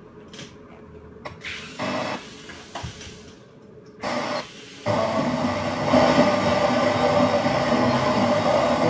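Daiichi car multimedia head unit's FM radio played through its speaker while being tuned: short bursts of sound for the first few seconds, then from about five seconds in a loud, steady hiss of poor reception.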